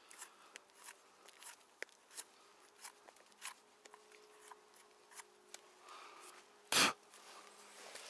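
Small scrapes, clicks and rustles of a freshly found porcini being picked and handled among forest litter, with one louder crackle nearly seven seconds in.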